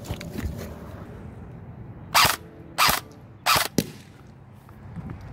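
Electric airsoft M4 rifle with upgraded internals firing three short, sharp shots about two-thirds of a second apart around the middle, the last one a quick double.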